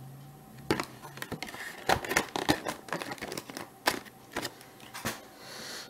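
Plastic packaging being handled: a run of irregular clicks and crinkles lasting about four seconds, starting under a second in.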